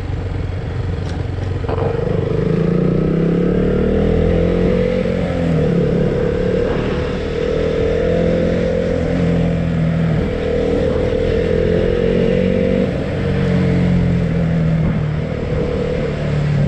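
Motorcycle engine heard from the rider's seat while riding, its pitch climbing and dropping several times as the rider accelerates, eases off and shifts gears.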